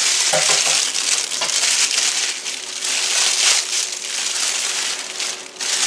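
Turkey-size plastic oven cooking bag crinkling and rustling loudly in irregular surges as it is pulled open by hand.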